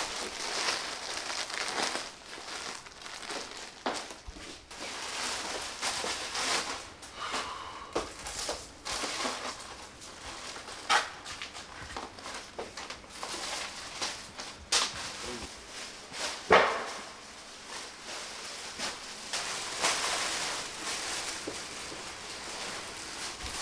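Plastic packaging bags crinkling and rustling as clothing orders are handled and packed, with scattered small clicks and one sharper knock about sixteen seconds in.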